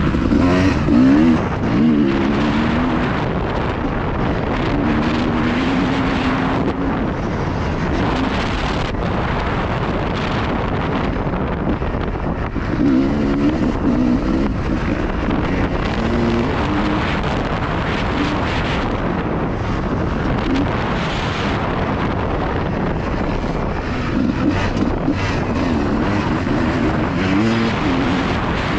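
2003 Honda CR250R two-stroke motocross bike revving up and falling back again and again as it is ridden, half buried under heavy wind noise buffeting the GoPro's microphone.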